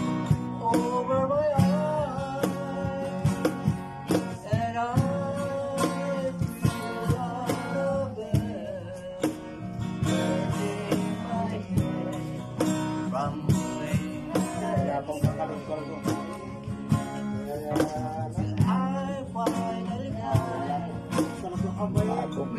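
Two acoustic guitars strummed and picked with a cajon tapping out the beat, and a man singing a slow melody over them.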